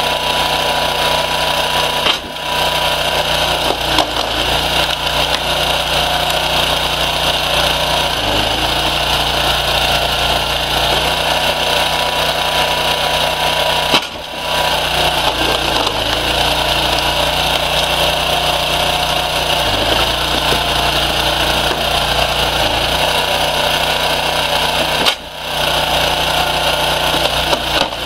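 Homemade firewood splitter running steadily, its motor drive droning as logs are pushed through a star-shaped splitting wedge. The low hum shifts every few seconds with each log's split, and the whole sound briefly drops three times.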